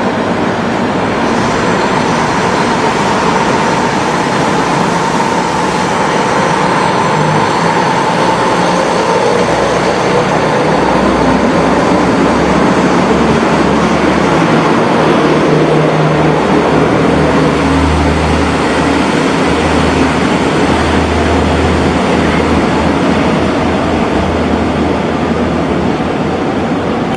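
JNR KiHa 66 diesel railcars pulling out of the station and passing close by, their diesel engines rumbling under load with a low, uneven throb that grows stronger partway through.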